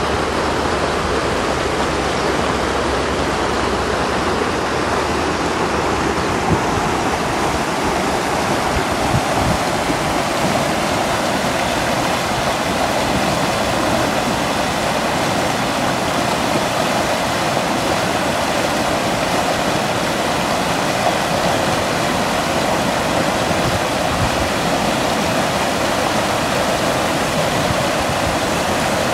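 Muddy floodwater rushing fast over stones and brush in a rain-swollen wadi: a steady, dense rushing noise of turbulent water.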